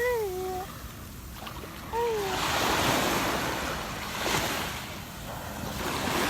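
Sea waves washing in and out on a beach, surging several times, with wind on the microphone. A small child's voice gives two short calls falling in pitch, one at the start and one about two seconds in.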